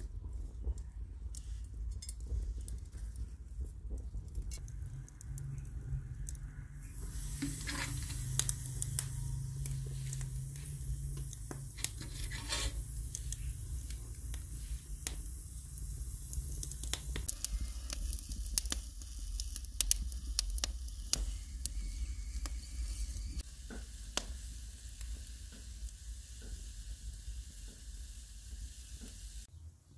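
Open wood fire crackling with sharp pops, and eggplants and tomatoes on metal skewers sizzling as they roast and char in the flames; a steady hiss comes in about seven seconds in.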